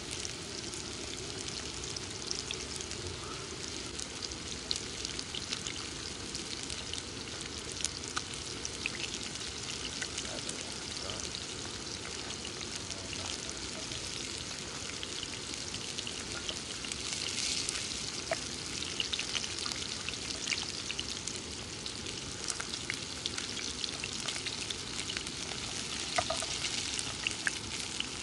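Flour-dredged crappie fillets frying in hot oil in a cast-iron skillet: a steady sizzle with scattered crackles, a little louder a little past halfway.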